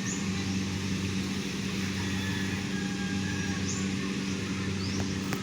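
An engine running steadily at an even pitch, with a few faint short upward chirps above it.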